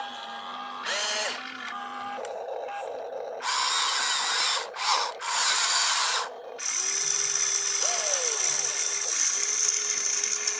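RC excavator's electric motors whining in short start-stop runs as the boom and bucket work, then one longer continuous run from about two-thirds of the way through as the loaded bucket swings over toward the dump truck.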